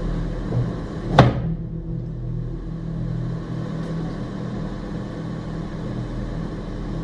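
A steady low hum of several pitches. About a second in, a single sharp click with a very quick falling sweep cuts across it.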